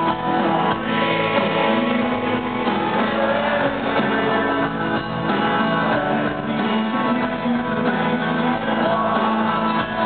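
A rock band playing live, led by a strummed acoustic guitar, heard from within the audience.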